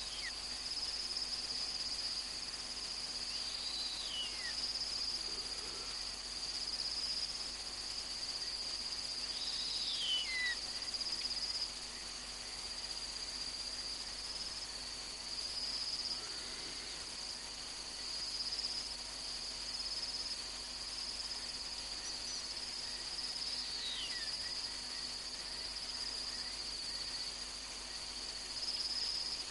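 Crickets trilling steadily in the night bush, with three faint descending whistles about 4, 10 and 24 seconds in.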